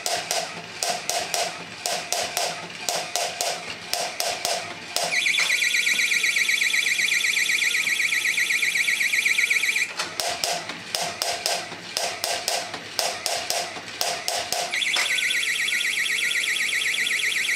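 3D-printed walking robots clacking rapidly as their single-motor-driven plastic legs and feet step on a tabletop. About five seconds in the clacking stops and a steady, fast-warbling electronic alarm-like tone sounds; the clacking returns about ten seconds in, and the warbling tone about fifteen seconds in.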